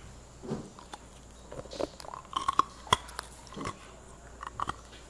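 Hard ice being bitten and chewed close to the microphone: irregular sharp cracks and crunches with softer chewing between them, the sharpest crack about three seconds in.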